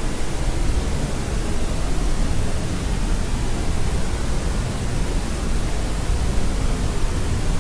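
Steady, unchanging white noise: an even hiss across all pitches, heavier in the low end.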